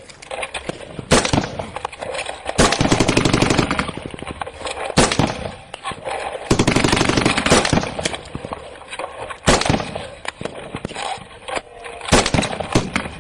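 Automatic weapon firing two long bursts of rapid shots, each over a second long, with single loud gunshots between and after them during a firefight.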